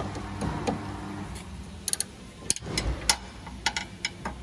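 Sharp, irregular metallic clicks, about eight of them in the second half, from an 18 mm ratchet spanner as it is fitted and worked on a car's front drop-link nut.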